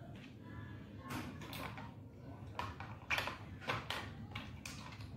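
A plastic toy truck clicking and knocking on a tile floor as a cat nudges it along with its head: a run of irregular clicks and knocks, the sharpest a little past halfway.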